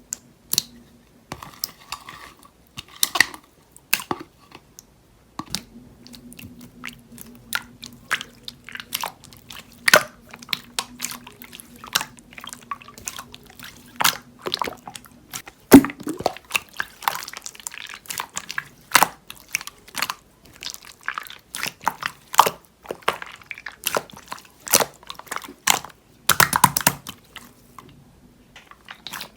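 Slime being squished and played with by hand, making irregular sticky clicks and pops. A faint steady hum runs underneath for part of it.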